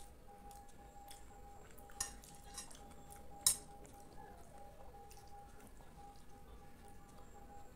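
Metal spoon clinking and scraping against a glass bowl while scooping up kheer (rice pudding): a few sharp clinks, the loudest about three and a half seconds in.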